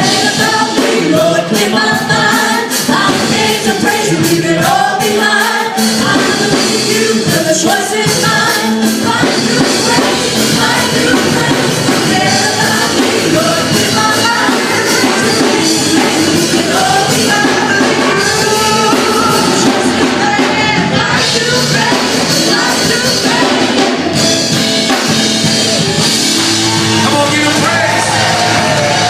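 Live worship song from a church band: keyboard and drums playing with voices singing along.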